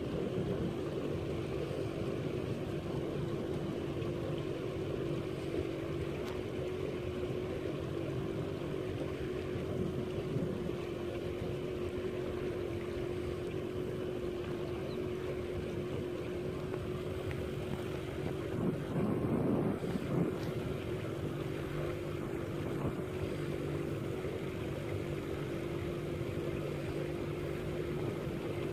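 Small fishing boat's motor running at one steady pitch while the boat moves along, with a brief louder rush of noise about two-thirds of the way through.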